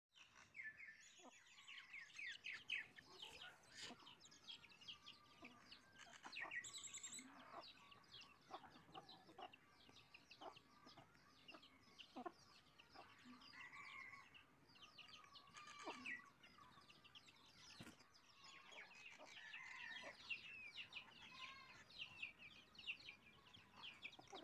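Faint sounds of a flock of chickens: hens clucking now and then, and chicks peeping in quick high chirps throughout.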